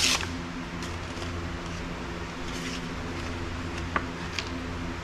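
Paper rustling as a cardboard mailing envelope is drawn out of a box of packing paper and handled, with a brief louder rustle at the very start and a few light crinkles and taps later. A steady low mechanical hum runs underneath.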